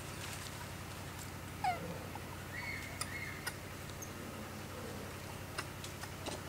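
A few faint animal calls, one short and falling about two seconds in and one held high note shortly after, with scattered small clicks over a steady low hum.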